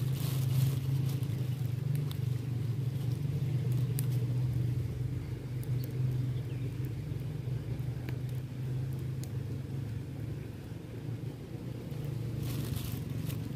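A low, steady engine hum, dipping slightly in the middle and rising again near the end.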